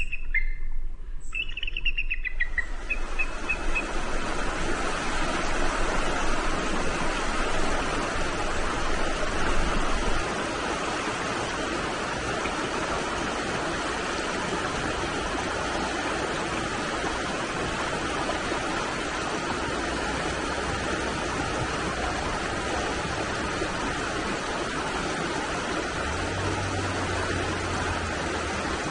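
A river running fast and shallow over rocks, a steady rush of water. A few short bird calls sound in the first seconds, over the start of the water noise.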